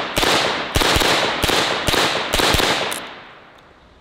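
HK SP5 9mm carbine firing semi-automatically: about seven quick shots at an uneven pace, each trailing a ringing echo, with the last ones fading out about three seconds in.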